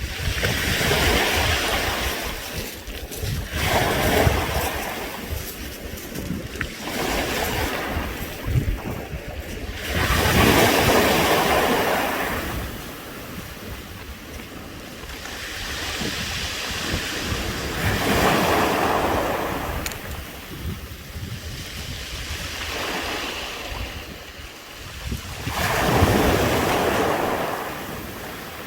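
Waves washing over a beach of round pebbles, the stones clattering and hissing as the water rolls them, swelling in surges every few seconds.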